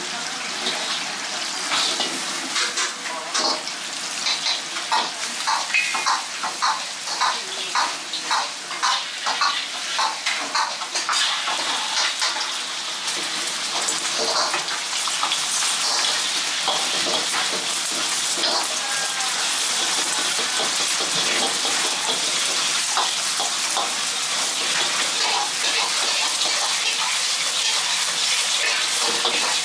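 Ladle strokes in a carbon-steel wok heating over a gas wok burner, about one and a half a second. About a third of the way in they give way to a steady sizzle as beaten egg hits the hot oil and is scrambled with the ladle.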